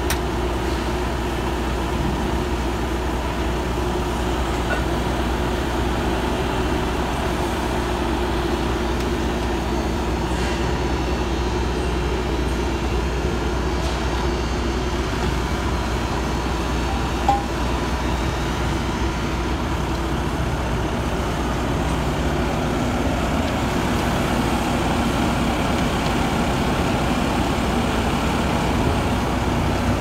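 Bobcat compact track loader's diesel engine running steadily, with one short sharp clank about seventeen seconds in.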